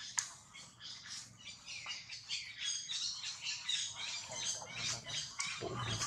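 Rapid, high-pitched animal squeaks and chirps, many short calls following one another without a break, with a brief low thump near the end.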